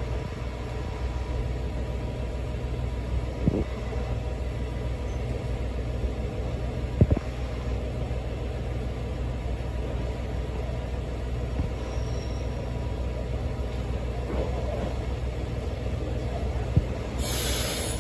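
JR Hokkaido H100 "DECMO" diesel-electric railcar idling at the platform, a steady low rumble, with a few sharp knocks. About a second before the end comes a short hiss of released air.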